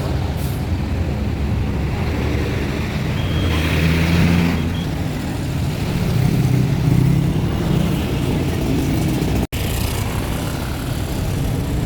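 Large bus's diesel engine running with a low, steady drone, a brief hiss about four seconds in, and a momentary dropout near the end.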